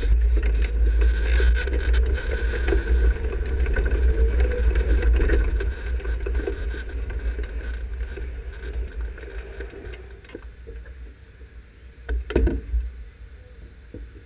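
Low rumble of a 360 sprint car rolling slowly, fading away after about six seconds; one short knock about twelve seconds in.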